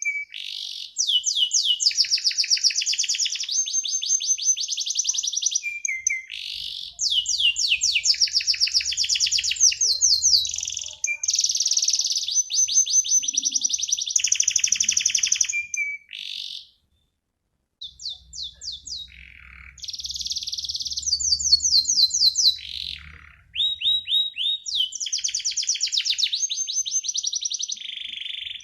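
Domestic canary singing long, rapid rolling trills of quickly repeated high notes, phrase after phrase; the song breaks off for about a second a little past the middle, then resumes.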